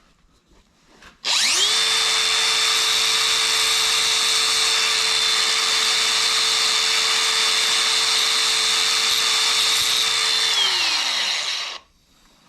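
High-speed electric rotary tool spinning up, running with a steady high whine and grinding noise for about nine seconds, then winding down. It is grinding the tips of needle-nose pliers to shape.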